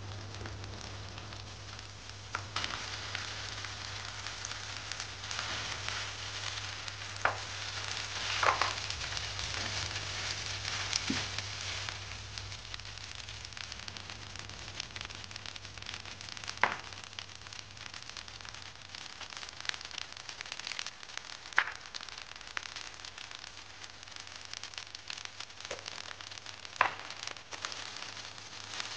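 Fried rice sizzling and crackling in a non-stick pan as it is stirred and tossed with a silicone spatula. A few sharp knocks of the spatula against the pan come every few seconds.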